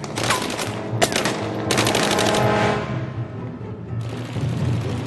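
Rifle shots and bursts of rapid gunfire, a sharp crack about a second in and more rapid fire near the end, over dramatic film music with a low drum pulse.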